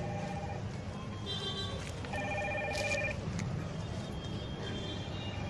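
A short tune of steady electronic tones, four held notes at changing pitches with the longest near the middle, over a low steady hum.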